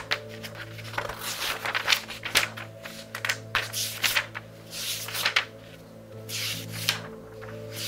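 Pages of a book of a couple of thousand pages turned rapidly, one after another, each a papery swish and crackle, over soft background music.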